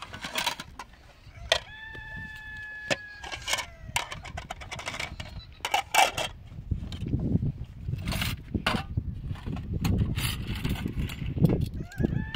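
Crockery and metal spoons clinking and knocking as they are sorted into a plastic basket. A rooster crows once about one and a half seconds in, and starts crowing again near the end.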